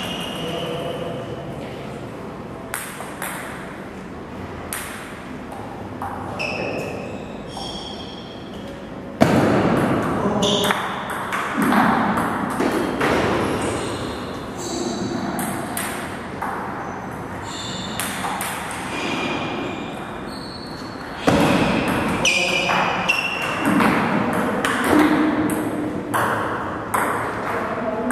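Table tennis balls clicking and pinging on the table and bats, many short bright ticks at uneven intervals, with two louder knocks about nine and twenty-one seconds in.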